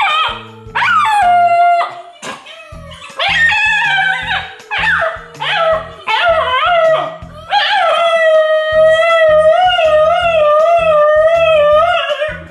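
Dog howling: a basenji's yodel-like howls mixed with dog howls played back from a phone. Several short howls that rise and fall, then one long wavering howl near the end, over background music.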